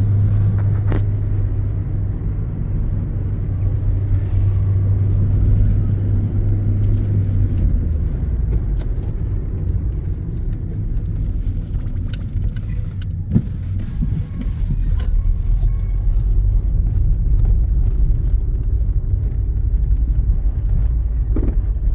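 Low engine and road drone heard inside a moving car's cabin, with scattered small rattles and clicks. The drone's pitch drops about a third of the way through, and there is a single sharp knock about halfway.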